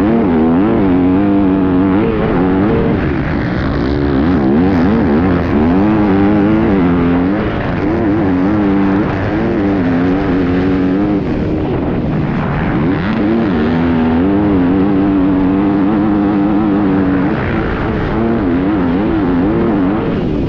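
A 2020 Yamaha YZ250F's four-stroke single-cylinder engine, heard from on the bike as it is ridden hard, its pitch repeatedly rising and falling as the rider accelerates, shifts and backs off the throttle.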